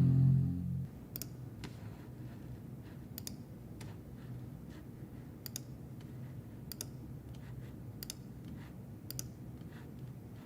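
Sharp separate clicks at irregular spacing, roughly one a second, from someone operating a new computer, over a faint low steady hum. A held chord dies away within the first second.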